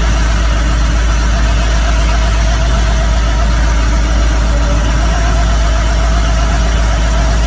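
Excavator diesel engine running steadily, powering a hydraulic core drill attachment that is coring into rock.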